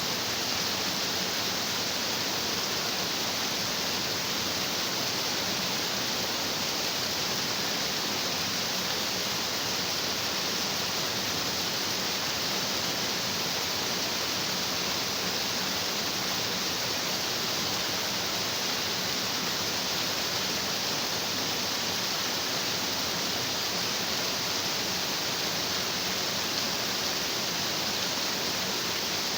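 Stream water rushing over rocks: a steady, even rush with no breaks or changes.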